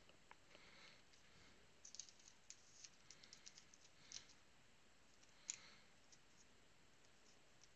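Near silence with faint, irregular clicks of trading cards being handled and flipped through, a scatter of small ticks in the middle and one sharper click a little past halfway.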